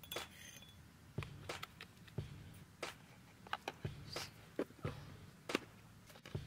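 Quiet eating sounds: irregular soft clicks, smacks and taps, about one or two a second, as grilled fish is picked apart and eaten.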